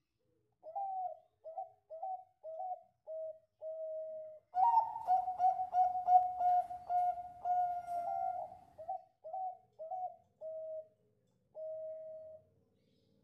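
Bangkok-type zebra dove (perkutut) singing its cooing song: a run of short rolling coos, a louder, fuller stretch in the middle, then more short coos ending on a longer drawn-out note.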